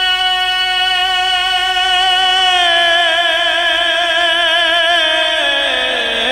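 A man's voice singing a Punjabi naat. He holds one long steady note, then breaks into wavering melismatic ornaments from about three seconds in, sliding lower near the end.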